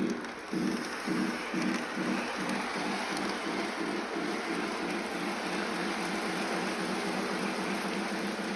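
O scale Polar Express model steam locomotive's sound system chuffing as the train gets under way, the chuffs coming faster over the first few seconds and then settling into a quick, even beat, over a steady hiss.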